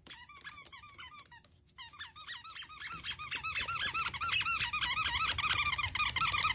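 Rubber squeaky toy squeaking over and over as a dog presses down on it. The short squeaks rise and fall in pitch, stop briefly about one and a half seconds in, then come faster and louder toward the end.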